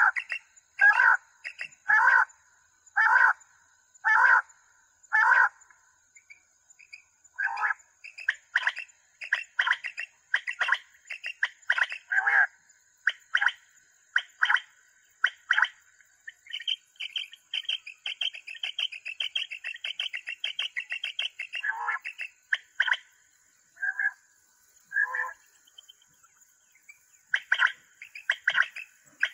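Recorded quail calls played through a battery-powered quail caller's loudspeaker: short calls repeated about once a second, with a rapid high trill for a few seconds in the middle. A faint steady high whine runs underneath.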